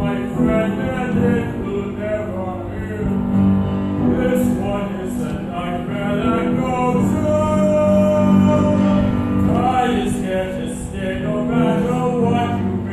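A solo male voice singing a musical-theatre song, accompanied on a grand piano.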